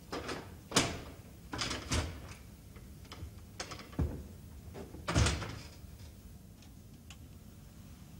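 A door being handled: a string of knocks and clunks over about five seconds, the loudest about five seconds in, then quiet.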